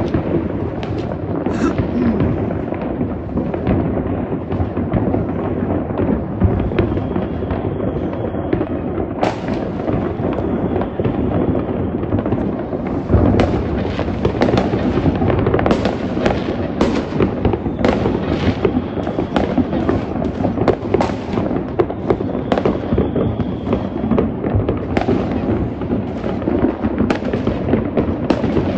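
Many fireworks and firecrackers going off at once: an unbroken crackle of overlapping bangs and pops, with sharper single bangs standing out every few seconds.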